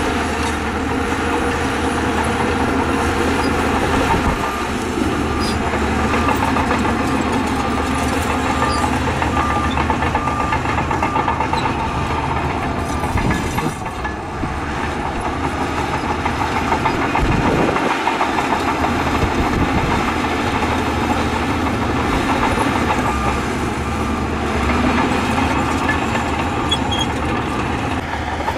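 Diesel engines of heavy earthmoving machinery, bulldozers and dump trucks, running steadily.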